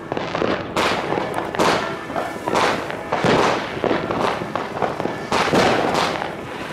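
Fireworks going off: a string of bangs, roughly one a second, each trailing off in an echo.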